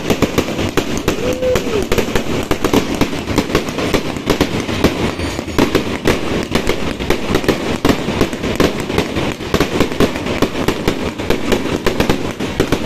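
A continuous barrage of aerial fireworks and firecrackers: many sharp bangs and crackles in rapid succession, with no let-up.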